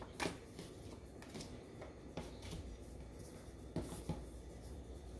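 Cardboard game cards being handled and laid on a tabletop: faint rustling with a few soft taps, two of them close together near the end.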